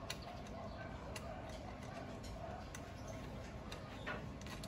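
Faint, irregular small clicks and ticks as a nut is turned by hand onto a bolt through a plastic motorcycle rear fender, over a faint steady background.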